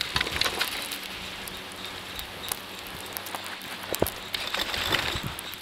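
Skis hissing and scraping as they slide through deep snow on a downhill run, with many small scattered clicks and crackles. The hiss swells at the start and again about four to five seconds in.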